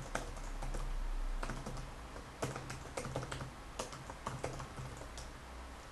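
Computer keyboard being typed on: irregular key clicks, a few each second, over a faint low hum that is strongest in the first couple of seconds.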